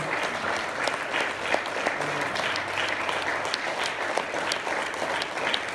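Congregation applauding steadily, many hands clapping at once.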